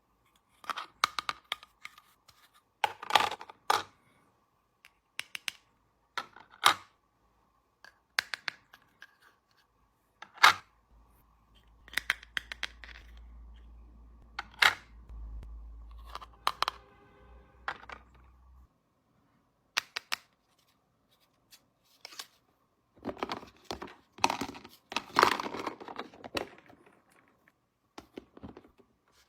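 Hands handling small toy pieces and packaging: scattered clicks and taps, with a denser stretch of rustling and tearing near the end.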